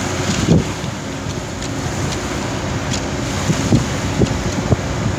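Wind buffeting the microphone in gusts over a steady rush of choppy sea.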